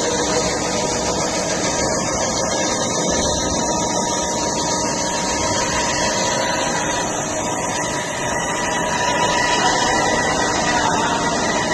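Band saw running, a steady machine hum with a few held tones, a little louder in the last few seconds.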